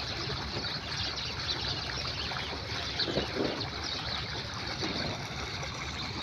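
Small birds chirping repeatedly in short high notes over a steady rush of running water.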